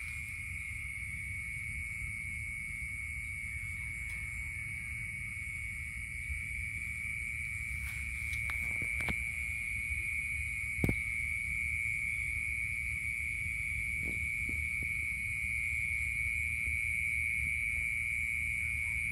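A steady chorus of night insects: one continuous high trill that never breaks, with a low rumble underneath. A few faint clicks sound, the sharpest about eleven seconds in.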